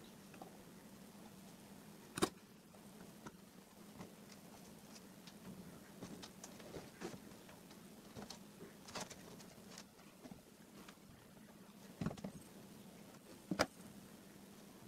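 Faint handling noises of small parts: light clicks, taps and rustles as fingers press coin vibration motors and thin wires on a board, with a few sharper clicks about two seconds in and twice near the end, over a low steady hum.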